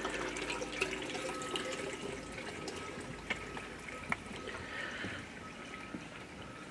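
Faint, steady trickling of running water, with a few light ticks.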